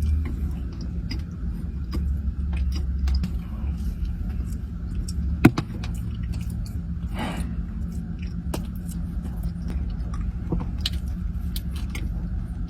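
Close-up mouth sounds of a person chewing a Crumbl lemon bar: soft wet clicks and smacks, with one louder click about five and a half seconds in. A steady low hum runs underneath.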